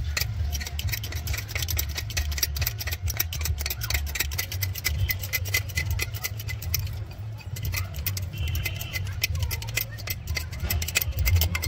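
Fast, irregular metallic clicking and rattling over a steady low hum as a jack is worked to lift a thresher's wheel.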